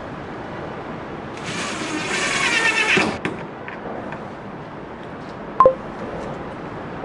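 A power drill runs for about a second and a half, then a single sharp metallic click with a brief ring a few seconds later.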